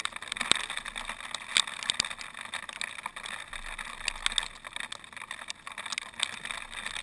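Hail falling, with many sharp, irregular ticks of pellets striking close by over a steady hiss of precipitation.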